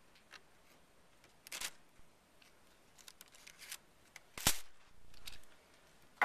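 Scattered light clicks and rustles of fingers handling a rubber-band-powered model helicopter while winding its rubber motor by turning the rotor, with one sharper click about four and a half seconds in.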